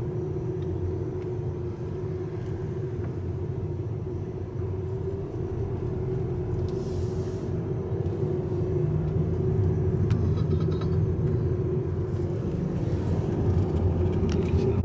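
Car cabin road noise: the engine and tyres give a steady low rumble with a faint steady hum while the car drives. A short hiss comes about halfway through, and there are a few faint clicks later on.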